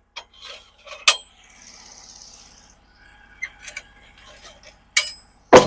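Knocks and clanks of a thick wooden slab being handled and flipped over on a portable sawmill's bed, with a brief scraping slide and a loud heavy thump near the end as it comes down.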